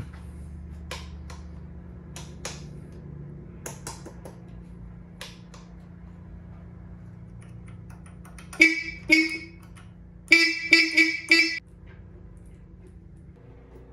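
Electric horn of a 1955 AJS Model 18S, running off its 6-volt battery, sounding in short toots: two, then a pause, then four in quick succession. This shows the horn is working. A few sharp clicks come earlier.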